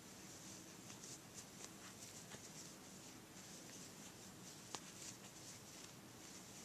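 Faint scratchy rustle of a metal crochet hook pulling yarn through single crochet stitches, with one small sharp click a little under five seconds in.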